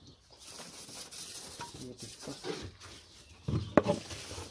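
Straw and hay bedding rustling and scraping against a wooden hutch floor as a gloved hand gathers it up, with scattered small clicks. A loud knock comes about three and a half seconds in.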